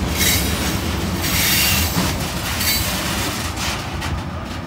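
Freight train's last gondola cars rolling past, a steady rumble of steel wheels on rail with repeated high wheel squeals. The noise fades toward the end as the end of the train goes by.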